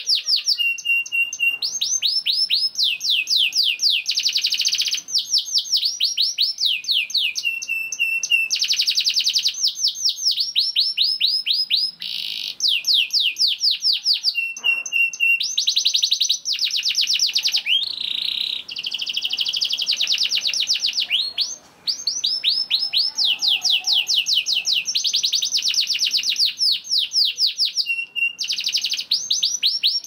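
Canary singing a long, almost unbroken song of fast trills, made of rapidly repeated sweeping notes. The trills are broken now and then by short, steady whistled notes, with a brief pause about two-thirds of the way through.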